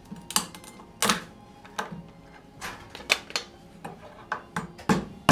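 Lobster claws being cracked open: a series of sharp, irregular knocks and cracks, about ten in all, the loudest about a second in and another at the end.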